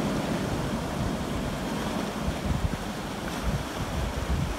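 Surf washing and foaming over shoreline rocks, with strong wind buffeting the microphone in uneven gusts.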